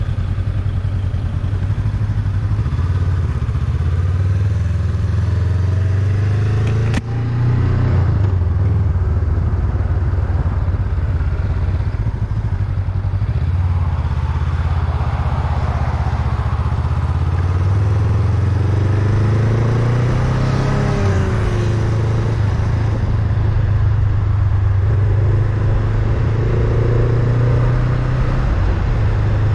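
Honda Rebel 500's parallel-twin engine running steadily while riding. Its note climbs slowly past the middle and shifts about two-thirds of the way through. There is one sharp click about seven seconds in.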